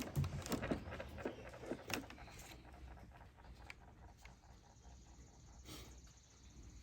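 Light plastic clicks and scraping as the Tesla Model X window switch unit is worked out of the door panel, several sharp clicks in the first two seconds, then only a few faint ticks of handling.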